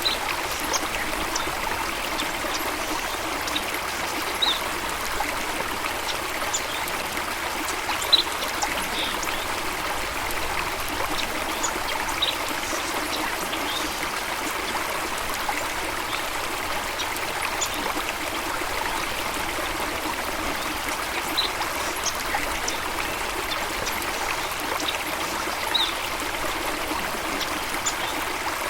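Steady rush of a flowing stream, water trickling and splashing, with a few short, high-pitched chirps scattered through it.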